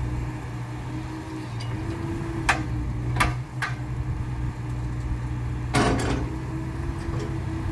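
Komatsu PC78US-8 excavator's 3.3-litre four-cylinder turbo diesel running steadily while the boom, arm and bucket are worked. Five sharp metal clanks come from the working linkage: three between about two and a half and three and a half seconds in, and two close together near six seconds.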